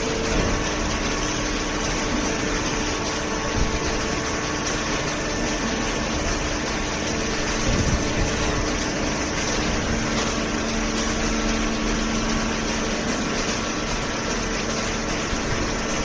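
A hydraulic cardboard baler line with its feed conveyor running: a steady machine hum from its motor and hydraulic pump, with a few held tones.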